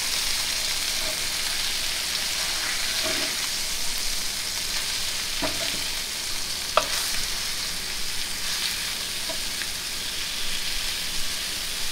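Blackened snook fillets sizzling in hot oil and butter in a frying pan, with a few light clicks of a metal spatula against the pan as the fillets are turned.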